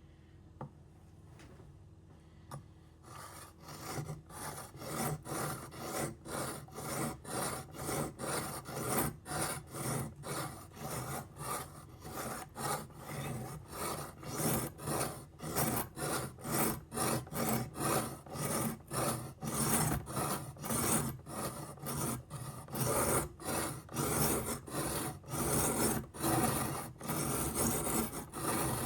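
Knife blade being drawn back and forth across a sharpening stone, an even rasping rhythm of about two strokes a second that starts about three seconds in.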